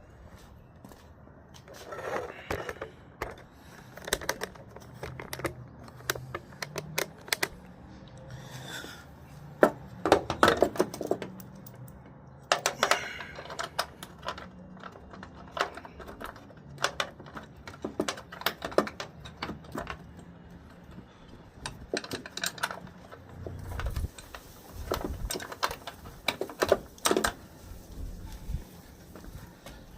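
Hand tools clicking and clanking against metal in irregular bursts during work on a truck's door hinges, with a few dull thumps near the end.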